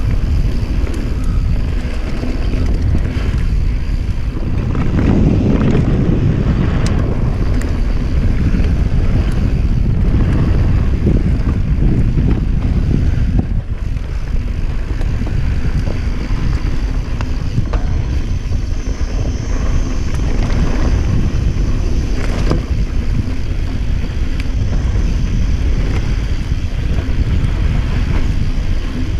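Wind buffeting a camera microphone mounted on a Norco mountain bike, over a steady rumble of tyres rolling on a dirt trail. Now and then a sharp click or rattle comes from the bike.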